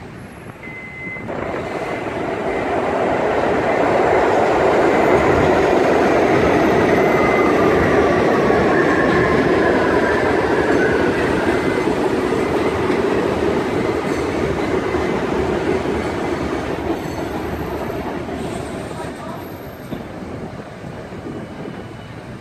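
New York City subway train running on an elevated steel structure. The rumble swells about a second in, is loudest through the middle and slowly fades, with a faint whine that falls in pitch around the middle.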